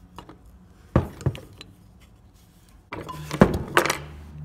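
Metal encoder cover being handled on a wooden workbench: two light knocks about a second in, then a louder clatter of knocks about three seconds in as the cover is slid up off the encoder.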